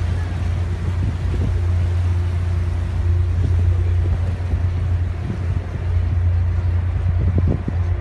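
Steady low drone of a ferry's engines.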